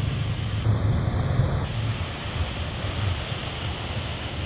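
Sea surf washing and breaking against the rocks below a seawall, with wind rumbling on the microphone.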